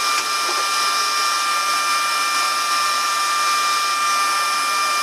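Steady whirring rush with several steady high whining tones from the powered-up electrical and cooling equipment in an MH-60 Jayhawk helicopter's cabin, with a few faint ticks right at the start.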